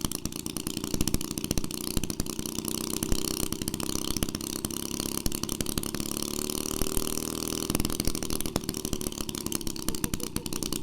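1946 Maytag Model 72 twin-cylinder two-stroke engine running on its first run after a full restoration, firing rapidly and steadily. Its speed climbs slightly in the middle, then drops back suddenly about three-quarters of the way through.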